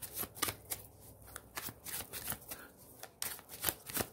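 Tarot deck being shuffled by hand, with packets of cards slapping and flicking together in quick, irregular strokes, about four a second.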